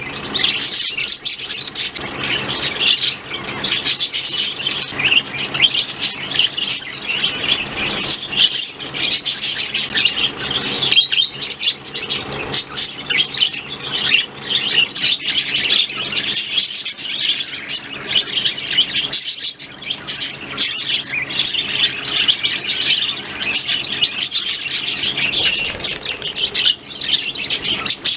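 A flock of budgerigars chirping and chattering continuously, many birds calling over one another.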